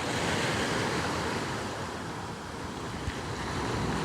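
Sea waves washing onto the shore, a steady rush of surf that is loudest in the first second and swells again near the end.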